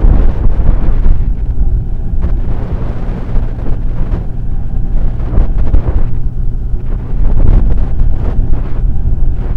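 Wind buffeting the microphone of a camera mounted on a moving motorcycle, with the motorcycle's engine droning steadily underneath. The buffeting eases in the middle and grows louder again near the end.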